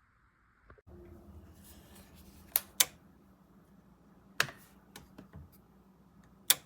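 A few sharp clicks or taps over a faint steady hum.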